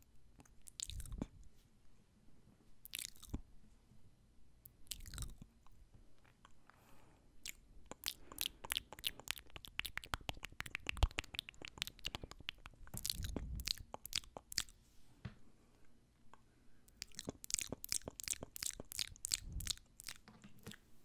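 A man's close-miked mouth sounds for ear-eating ASMR: smacking and clicking of lips and tongue. Scattered at first, they come in dense fast runs about eight seconds in and again near the end.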